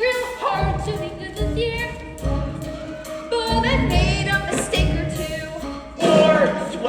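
A choir singing a Christmas song over a backing track with a steady bass beat.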